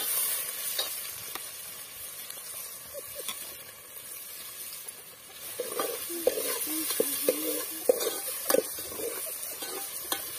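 Chopped onions sizzling in hot oil in an aluminium pot, stirred with a metal ladle that scrapes and clinks against the pot. The stirring gets busier in the second half, with a few sharp clinks about eight seconds in.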